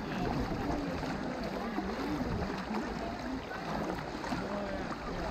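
River water sloshing and splashing steadily around the legs of several people wading knee-deep through a shallow river.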